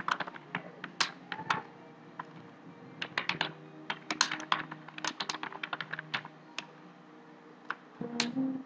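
Typing on a computer keyboard: irregular runs of keystroke clicks with short pauses between words.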